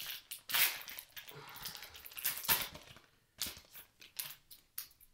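Crinkling of a foil trading-card pack wrapper being opened, in rustling bursts for about three seconds. After that come a few light clicks and taps as the cards are handled.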